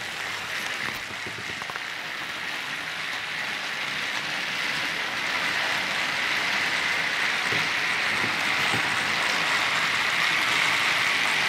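Several battery-powered TrackMaster toy trains running together on plastic track: a steady whir of their small motors and gears that grows gradually louder.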